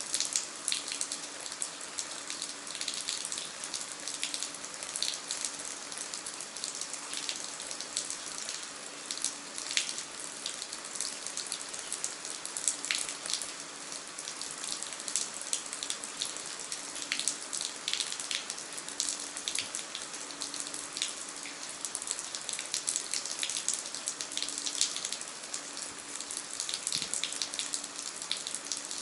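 Steady rain falling, with many close individual raindrops splashing over an even hiss. A faint low hum comes and goes underneath.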